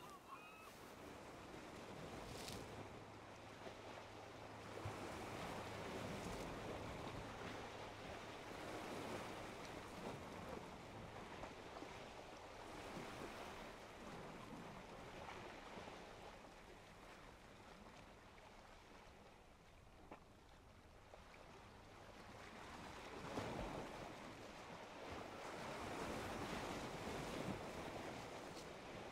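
Small waves of a calm sea washing on the shore, the surf noise swelling and fading in slow surges. A faint steady low hum runs through the first half.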